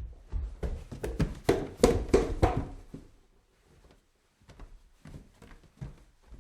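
Footsteps climbing stairs. A fast, loud cluster of treads and knocks fills the first three seconds, then after a pause a lighter run of separate steps comes near the end.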